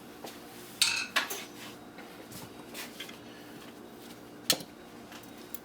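Metal scrap parts from a dismantled dehumidifier clanking as they are moved and set down: two clanks about a second in, one ringing briefly, and one more sharp clank near the end, over a faint steady hum.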